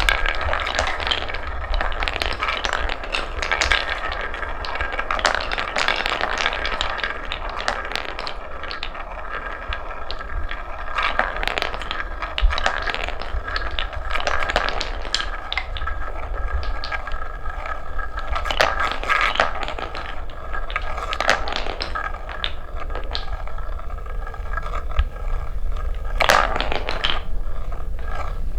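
Coloured wooden balls rolling down a wooden marble-run track. There is a continuous rolling rattle and scrape, with many scattered clicks and knocks as the balls hit the track and each other.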